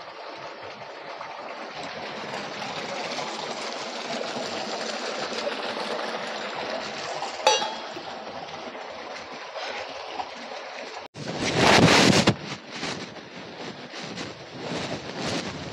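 Steady hiss of background noise with a single click about halfway through. After an abrupt cut, a loud rush of noise lasting about a second, then scattered short noises.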